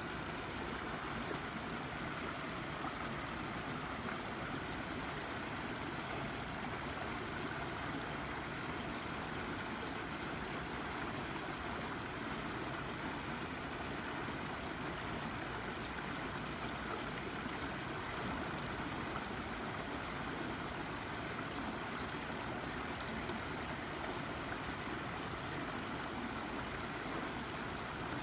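Shallow brook babbling and gurgling over a rock in a steady, unbroken flow.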